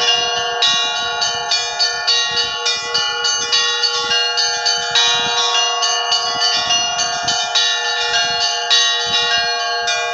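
Russian Orthodox church bells of the Kizhi belfry ringing a peal: several bells struck in quick, uneven succession, higher bells chiming over a steady ringing of lower bells.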